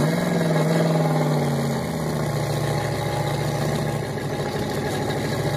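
Engine of the towing vehicle running steadily as it pulls a rider through the snow, a little higher in pitch for the first two seconds, then settling slightly lower.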